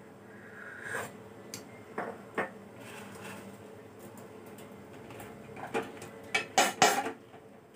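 A spoon clinking against a ceramic bowl and tea cup while someone eats and drinks tea: a few separate light clinks, then a louder cluster of knocks near the end.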